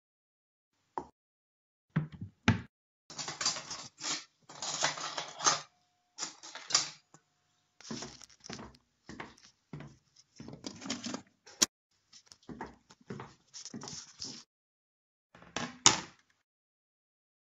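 Clatter and knocks of a knife and plastic cutting board being handled and used for chopping, in separate short bursts with dead silence between them.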